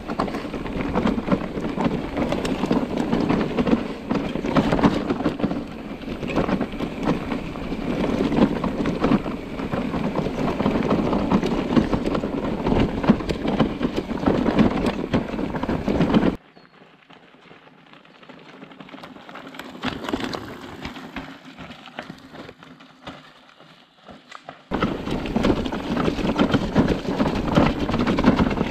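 Mountain bike rolling fast downhill over a rough, stony track: a dense, steady crunch and rattle of tyres and bike. About two-thirds of the way through it drops abruptly to a much quieter stretch for several seconds, then comes back just as suddenly.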